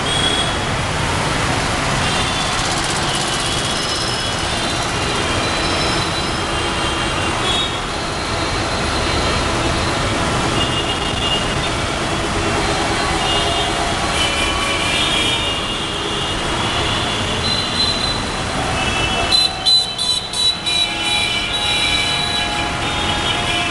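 Road traffic heard from inside a moving vehicle: steady road and engine noise with short high squeaking tones coming and going, and a few sharp knocks and rattles near the end.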